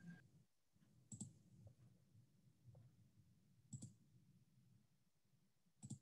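Three short, sharp clicks over near silence: about a second in, just before four seconds, and near the end.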